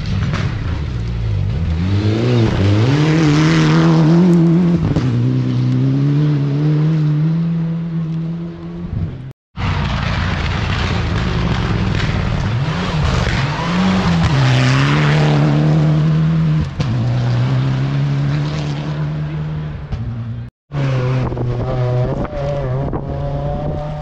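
Rally cars at full throttle on a gravel and dirt stage, one after another with abrupt cuts between them. Each engine note dips and climbs again, then falls in steps as the driver shifts up through the gears.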